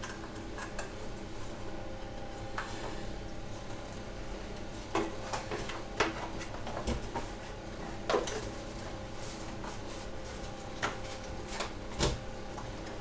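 Scattered clicks and knocks of parts being handled, a handful over several seconds, over a steady electrical hum.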